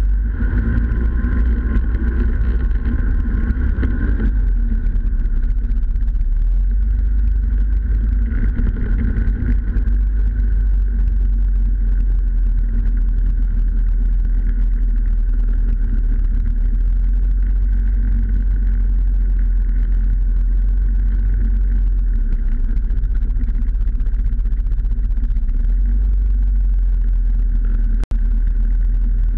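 Snowmobile engine running steadily while the machine travels along a snow trail, with a heavy low rumble, heard from a camera mounted on the snowmobile itself. The engine note shifts during the first few seconds and then holds steady. The sound cuts out for an instant near the end.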